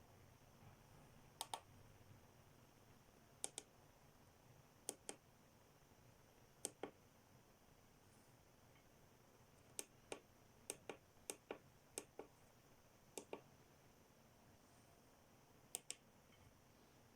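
Near silence broken by about eleven sharp clicks, most of them coming as quick double clicks, like a small switch being pressed and released.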